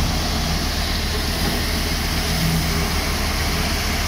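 Tractor engine running steadily while driving a Jangeer mini combine thresher: a low, even engine hum under a dense, steady hiss from the running machinery.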